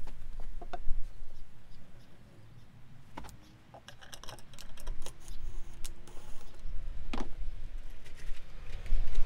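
Clicks, taps and knocks of handling: an MDF disc set onto a PVC pipe, then a cordless impact driver driving a screw into the disc, with a dense run of rapid clicks about four seconds in.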